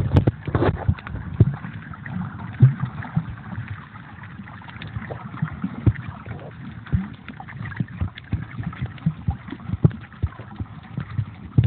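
Muffled water sound picked up by a phone sealed in a waterproof pouch while snorkelling, with many irregular small knocks and crackles of the pouch and water against it.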